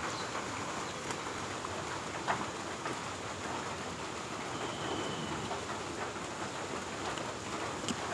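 Steady rain falling, an even hiss with a few scattered short taps.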